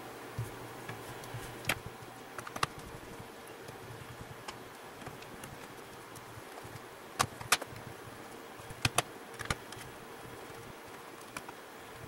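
Scattered sharp clicks and light taps from hand work on a Dell Latitude 5490 laptop's plastic bottom cover as it is snapped back on and its screws are driven in with a hand screwdriver. Several clicks come in quick pairs about two-thirds of the way through, over a faint steady hum.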